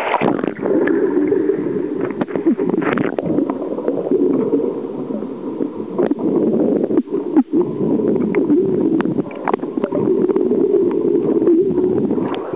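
Muffled underwater sound of a swimming pool picked up by a submerged camera: a steady low rush with bubbling and scattered sharp clicks and knocks from people moving in the water.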